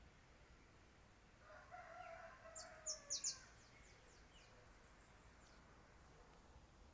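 A rooster crowing once, a faint call of about a second and a half. Several quick, sharp, high bird chirps sound over the end of the crow.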